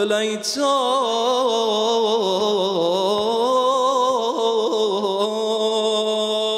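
A man singing an unaccompanied Shia lament (latmiya/noha) in Persian. He draws out one long, ornamented note whose pitch wavers and bends up and down throughout.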